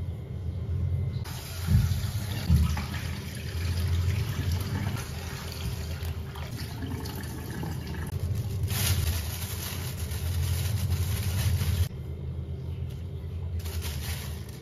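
Kitchen tap running into a plastic basin while cut squid rings are rinsed and rubbed by hand, with water splashing and a few low knocks of the basin early on. The water stops about twelve seconds in and runs again briefly near the end.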